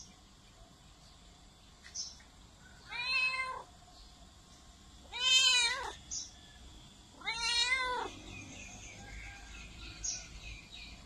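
Domestic cat meowing very loudly: three meows about two seconds apart, each under a second long and rising then falling in pitch.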